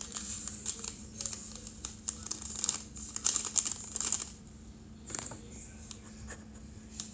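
Tiny diamond-painting beads poured from their packets into small ceramic ramekins: a dense rattle of many small clicks in bursts, heaviest about three to four seconds in, thinning to scattered clicks near the end.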